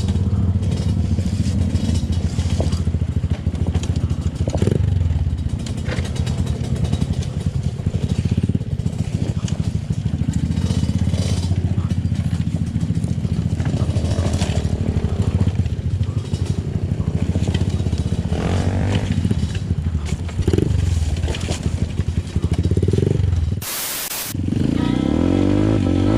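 Off-road trail motorcycle engine working over a rough trail, with a few short revs. The sound cuts out briefly near the end.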